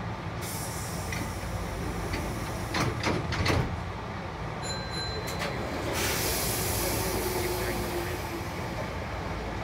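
Sounds in the cab of a Hankyu 5100-series electric train: a steady low rumble, a few loud clunks about three seconds in, then a short high beep, and from about the middle onward a louder hiss of compressed air.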